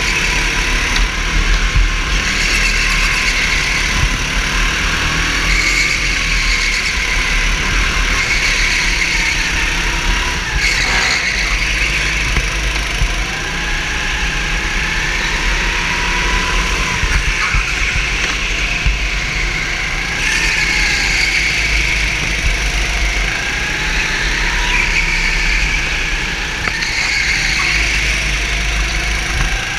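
Racing kart engine heard from on board at race pace, its pitch climbing as it accelerates and dropping back as it slows for the corners, several times over.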